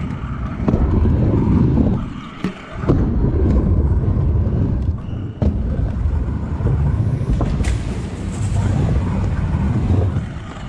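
Stunt scooter wheels rolling over skatepark ramps: a steady low rumble that dips briefly about two seconds in and comes back with a sharp clack, with a few more sharp clacks later on.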